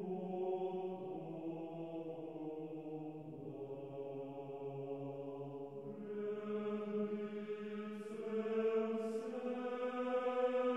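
Background music of slow vocal chanting, with long held notes that shift pitch every few seconds.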